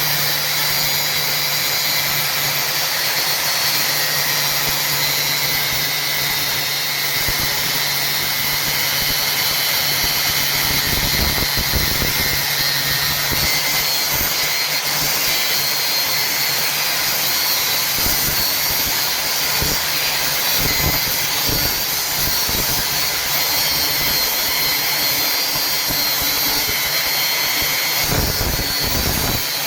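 Machine cutting iron: a steady, loud grinding hiss of metal being cut, over a low motor hum that fades about halfway through.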